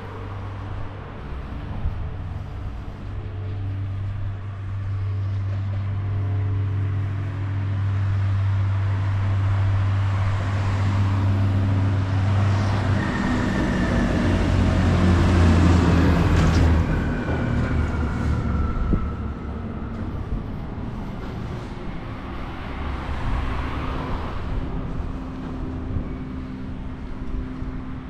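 A motor vehicle with a low engine hum drawing near and passing close by, loudest a little past halfway. A whine falls in pitch as it goes past, and then it fades.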